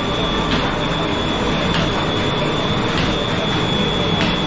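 Large electric motor driving a petti-para box-and-wheel dewatering pump by a flat belt, running steadily with a constant high whine and a faint regular tick about every second and a quarter. The machine is lifting water out of the paddy wetland into the canal.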